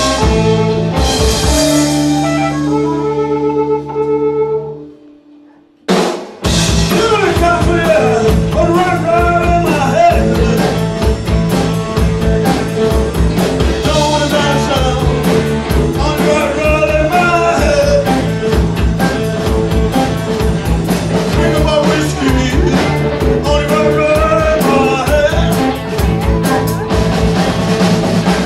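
Live blues-rock band with Stratocaster-style electric guitars and a drum kit. A held chord fades out over the first few seconds, there is a brief near-silent break, then about six seconds in the band comes back in with a steady beat and a bending lead melody.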